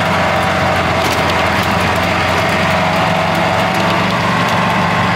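Steady vehicle engine drone, holding an even pitch with no revving.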